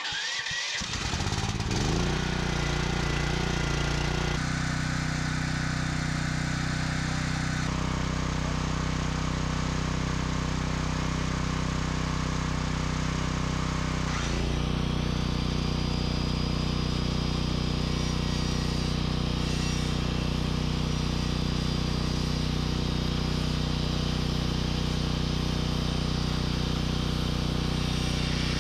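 Corded electric sander starting up, then running steadily as it is worked along a wooden board, with a brief dip in its hum about halfway through.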